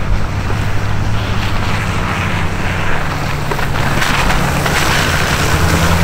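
Pickup plow truck driving up and passing close, its engine running steadily under the hiss of the plow and tyres working through heavy wet snow, growing louder over the last couple of seconds as it nears.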